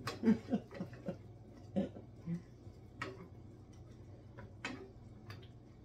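Wooden spoon knocking and scraping against a metal skillet while stirring meatballs in tomato sauce: irregular light clicks and taps, several close together in the first second, over a low steady hum.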